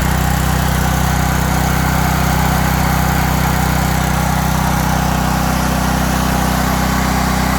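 Briggs and Stratton 5000-watt portable generator's small gasoline engine running steadily, back in running order after its gummed carburetor float needle valve and stuck choke were cleaned.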